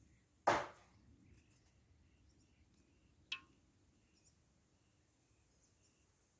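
A loud sudden knock about half a second in that fades over a moment, then a shorter, sharper click about three seconds in, over faint high chirping.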